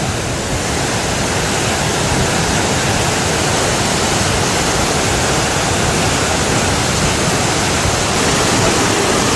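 Floodwater of a flash flood rushing down a valley: a loud, steady rush of water that swells slightly near the end.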